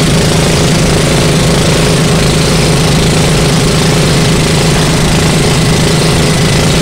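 Outrigger pump boat's engine running steadily and loud at cruising speed, heard from on board, with the rush of water and wind from the moving hull over it.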